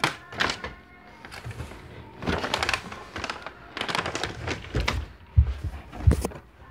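Clattering knocks and clicks of objects being handled and moved about, with two heavy thumps near the end.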